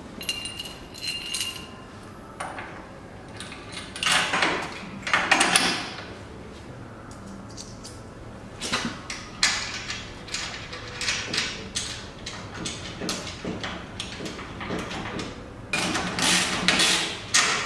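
Metal clinks, taps and scrapes as a bolt, washer and door stopper are handled and fitted onto a steel gate hinge, in irregular bursts. The loudest bursts come about four to six seconds in and again near the end, as the fixing is tightened.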